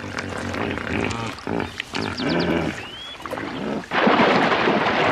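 Deep animal grunts and roars from hippos and crocodiles in a muddy pool, then a loud burst of splashing and thrashing in the mud about four seconds in.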